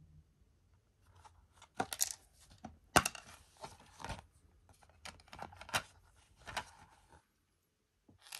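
Hands opening a plastic DVD case: a run of plastic clicks and handling rustles, the loudest a single sharp snap about three seconds in. The handling stops about a second before the end, followed by one last brief click.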